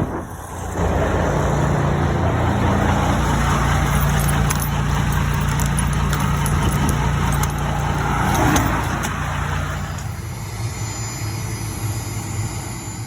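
Semi-truck diesel engine running steadily with a constant low hum, plus rattles and a few sharp clicks; it swells briefly past the middle.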